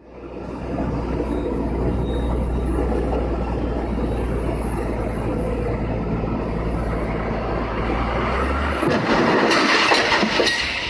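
Steady low machine rumble with rattling, like a large engine running. The hum stops about nine seconds in and a louder, noisier rush follows.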